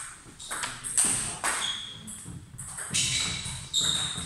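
Table tennis balls struck by bats and bouncing on tables at several tables at once: an irregular run of sharp clicks and pings, the loudest about a second in and again near three and four seconds.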